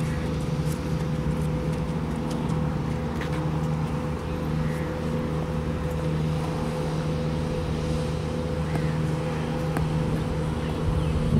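Steady hum of a running machine, holding one pitch throughout, with a few faint ticks over it.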